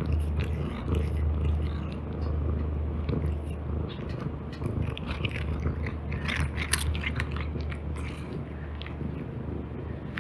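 Cat chewing and crunching dry treats close to the microphone, the crunches thickest in the middle, over a steady low purr.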